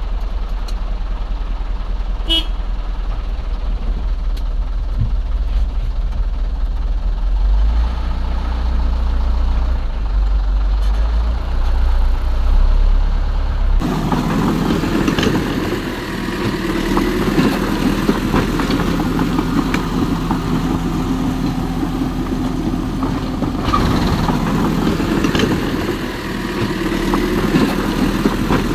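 Machinery running steadily with a deep low rumble, then after a sudden cut about halfway through a different machine sound with a steady hum and rattly noise.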